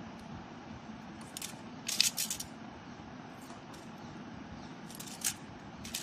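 Light clicks of green plastic tube beads knocking together on a plate as they are picked through and threaded, with the loudest little cluster of clicks about two seconds in, over a steady hiss.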